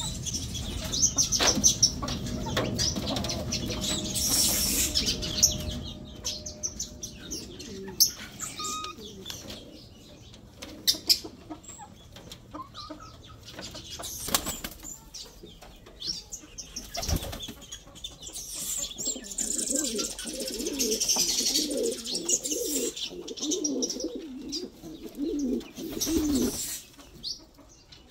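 Domestic pigeons and chickens in their coop: wings flapping, with short clicks and knocks throughout and pigeons cooing in the later part.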